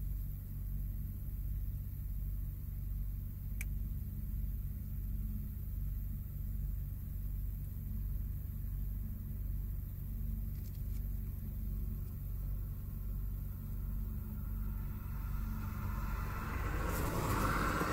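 Distant forage harvester and tractor engines running steadily under load, a low even drone with a slow regular swell. Near the end a louder rushing noise rises over it.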